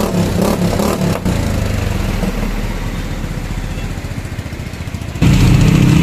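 Suzuki Burgman Street 125 scooter's single-cylinder engine running through a newly fitted Akrapovic slip-on exhaust, blipped in the first second, then settling and growing gradually quieter. Shortly before the end it cuts abruptly to a louder, steady engine note.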